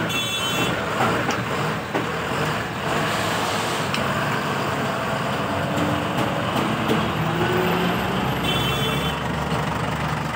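Steady road traffic noise: the engines and tyres of passing vehicles.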